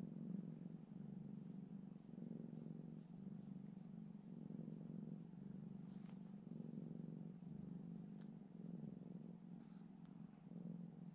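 Domestic cat purring steadily, a low rumble that swells and eases with each breath.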